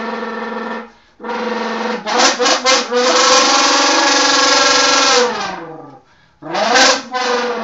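Mouth imitation of a V10 engine, buzzed through a can so it sounds brassy. It holds a steady engine note, breaks off briefly, blips a few times, then holds a long high note. That note falls away like an engine slowing, and after a short pause it rises again in a fresh rev.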